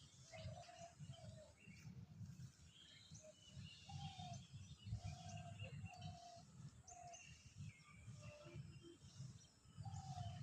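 Faint birdsong: a bird repeating a short pitched call every half second to second, with higher, thinner chirps from other birds among them, over a low rumble.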